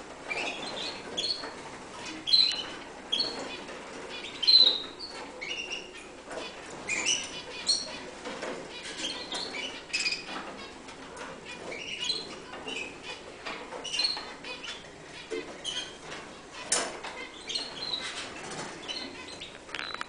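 Newly hatched agate canary chick cheeping to beg while being hand-fed from a syringe: short high peeps at an irregular pace of about one a second, with soft rustling and clicks in between.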